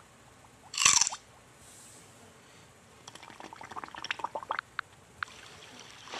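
Cartoon sound effects for the animation: one short loud splash- or bite-like burst about a second in, then faint scattered clicks and pops like bubbles.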